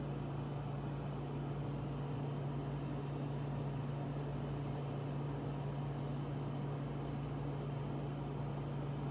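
A steady low mechanical hum, like a small motor or fan running, over a faint even hiss.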